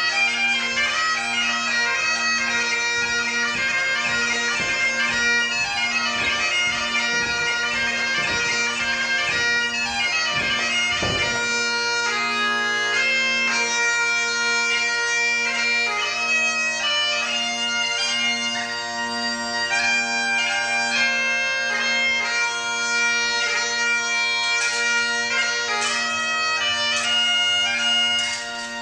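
Highland bagpipe playing a dance tune over its steady drones. A few dull thuds in the first half, the strongest about eleven seconds in, and a few sharp clicks near the end.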